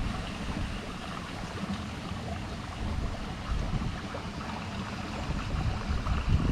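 Outdoor water-side noise: a steady, uneven low rumble of wind on the microphone mixed with moving water, swelling slightly near the end.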